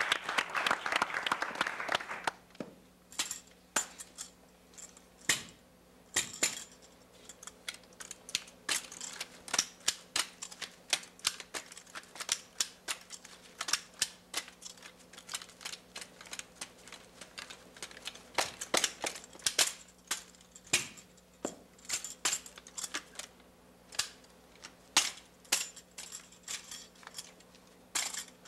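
Applause fading out about two seconds in, then a long irregular series of sharp clacks and slaps as a drill rifle is spun, caught and struck by white-gloved hands in a rifle drill routine.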